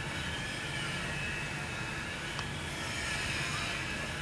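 Hand-held power grinder grinding a Shinkansen rail at a distance, running steadily with a high whine that slowly dips and rises in pitch over a low steady hum.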